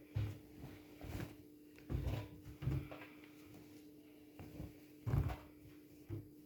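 Washing machine giving irregular low thuds and knocks, several in a few seconds, over a steady low hum.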